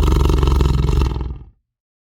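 Tiger roaring, a deep rough roar that fades out about a second and a half in.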